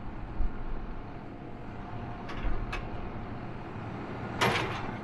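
A heavy farm-machinery engine running steadily as a low rumble, with a couple of light clicks around the middle and a short, louder hiss-like burst near the end.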